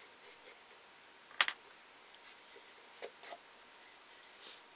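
Pencil scratching short strokes on a carved wooden dummy head. A sharp knock follows about a second and a half in, then two lighter knocks as the wooden head is handled.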